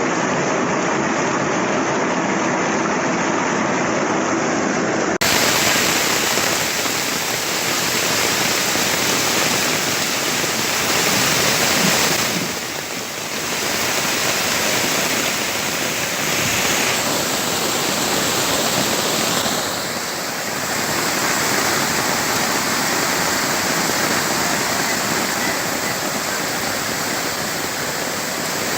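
Steady, loud rush of water from heavy rain and flooding, with an abrupt change in the sound about five seconds in and two brief dips later.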